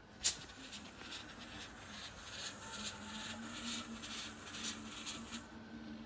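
Fog machine blowing fog: a sharp click, then a hiss that pulses about three to four times a second and stops abruptly near the end.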